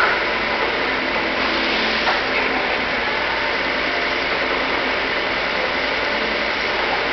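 Steady running noise of metalworking machinery, even and unbroken, with a light click about two seconds in.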